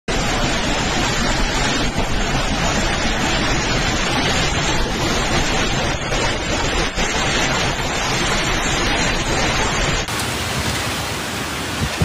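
Hurricane wind and driving rain, a steady loud rushing noise; the sound changes about ten seconds in, with less low rumble.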